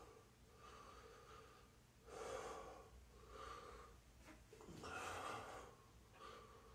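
A man breathing in and out while holding a handstand, about five soft breaths, the loudest about two and five seconds in.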